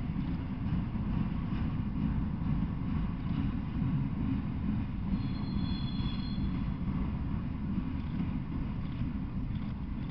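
Freight train of enclosed autorack cars rolling past: a steady low rumble of steel wheels on rail with faint clicks, and a brief thin high squeal about five seconds in.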